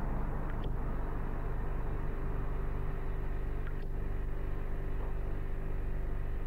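Steady low mechanical rumble with a constant hum in it, and a few faint short high ticks scattered through.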